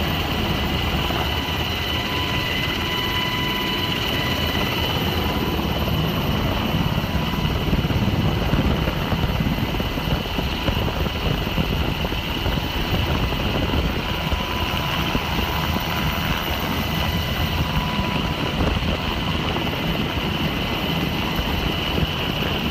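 Coast Guard rescue helicopter running steadily in flight: a continuous rotor and engine noise with a steady high whine over it.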